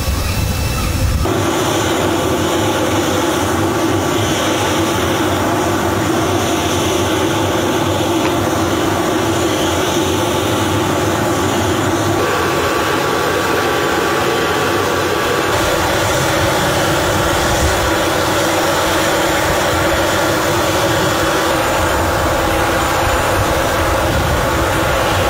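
Steady jet engine noise of a military cargo aircraft on the ground: a loud continuous hum and whine. It shifts abruptly in tone about a second in and again around twelve and fifteen seconds in.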